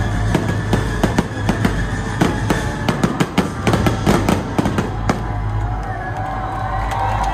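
Aerial fireworks bursting and crackling in a rapid string of sharp pops, thickest in the middle and thinning out near the end, over steady show music.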